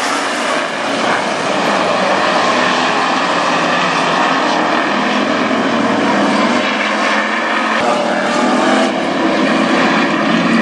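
A pack of dirt-track street stock race cars with V8 engines running together around the oval in a loud, steady engine drone.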